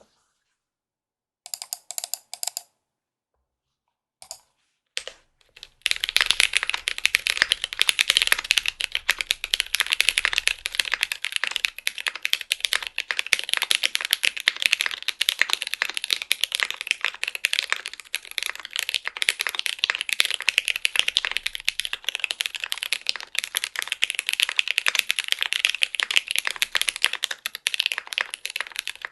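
Typing on a Kinetic Labs TG-67 custom mechanical keyboard with stock Jwick tactile switches, EPBT keycaps and a polycarbonate plate in a foam-filled, silicone-gasket-mounted case. A few scattered keystrokes, then fast continuous typing from about six seconds in.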